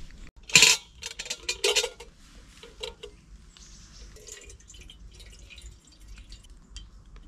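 Metal camping cookware clinking as a pot, lid and mug are handled: a few sharp clinks and knocks in the first two seconds. Then a quieter stretch of water being poured from a bottle into the pot on a gas canister stove.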